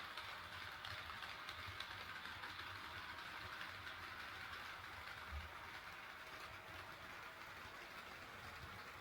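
HO scale model train running on the track, a steady rolling rattle of wheels and motor that grows slightly fainter in the second half.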